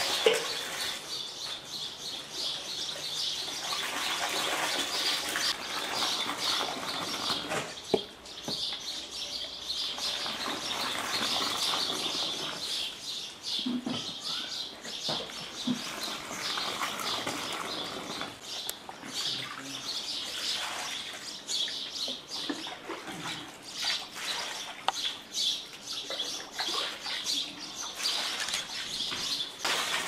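Licorice-root sherbet poured in a long stream from a raised bowl, splashing steadily into a metal basin and frothing up into foam. There is a sharp knock just after the start and another about eight seconds in.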